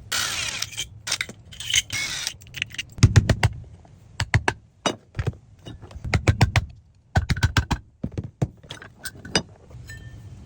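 A short hissing rush, then irregular metallic clinks, knocks and rattles as the worn air-conditioner fan motor is handled.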